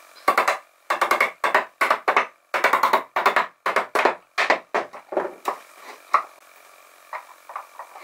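Repeated quick strokes of a hand tool working wood, about two to three a second, stopping about six seconds in.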